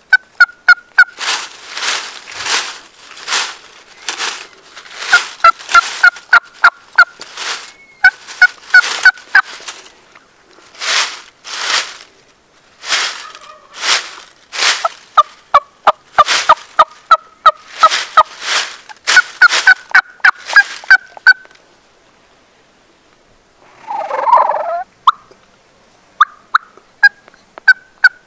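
Turkeys gobbling, with runs of short, quick yelping notes. There is a pause about three quarters of the way through, then a lower rattling gobble and more yelps near the end.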